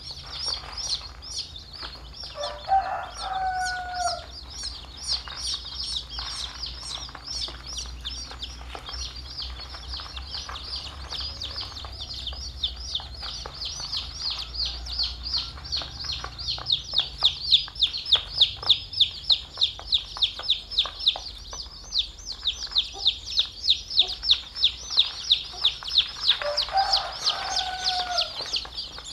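A brood of young chicks peeping constantly, many high, short peeps overlapping in a rapid stream that grows louder about halfway through. Twice a lower, longer call sounds over them, a few seconds in and near the end.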